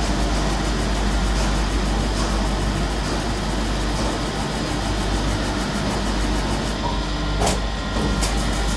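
Automatic disc polishing machine for copper cups running: a steady mechanical drone over a constant low motor hum, with one sharp click about seven and a half seconds in.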